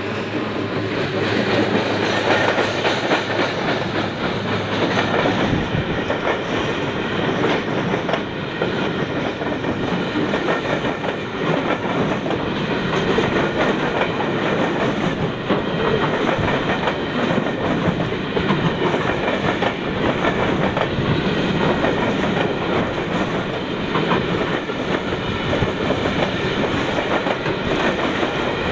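Container freight train passing close by, its wagons' wheels clattering steadily over the rail joints with a continuous rumble and rattle.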